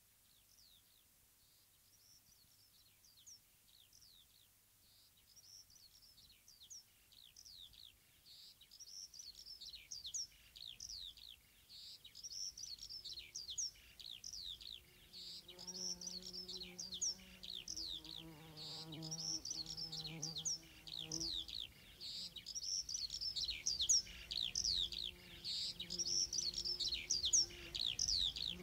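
Many birds chirping in quick, falling notes, fading in and growing steadily louder. From about halfway, a few low held tones sound beneath the chirps, shifting pitch every couple of seconds.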